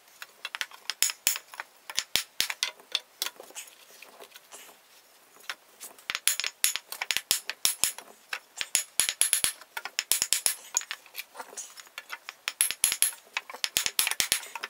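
Rapid sharp wooden knocks in irregular bursts as a 2x4 block strikes an antique oak chair's back assembly, knocking apart glue joints softened with a heat gun. The knocking pauses briefly about four seconds in.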